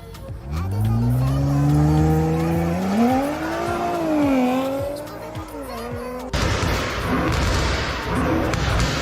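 A car engine revving up, its pitch climbing for about three seconds, then wavering and dropping back. Just after six seconds it cuts abruptly to a louder, rougher engine sound with sharp cracks.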